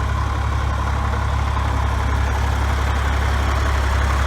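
Heavy engine of the mole-ploughing machinery running steadily with a deep, even hum.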